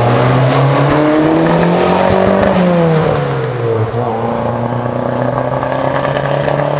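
Audi sedan's engine accelerating past, its pitch climbing for a couple of seconds, then falling about three seconds in as the car passes and pulls away, running on more quietly and steadily.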